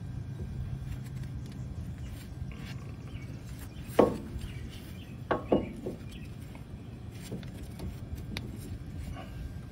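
Metal clanks of a steel pitman arm being knocked up onto the splined sector shaft of a steering box: one sharp clank about four seconds in, then two more close together a second or so later.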